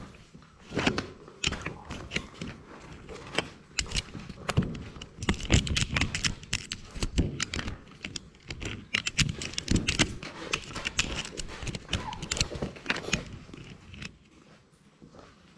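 Labrador puppy mouthing and pawing a GoPro at close range: rapid irregular knocks, taps and scrapes on the camera housing, with fur rubbing over the microphone, falling away shortly before the end.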